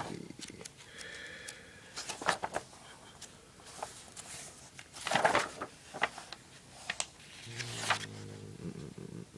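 Paper pages of a printed technical manual being handled and turned, rustling in several short bursts. Near the end there is a brief low hum of a man's voice.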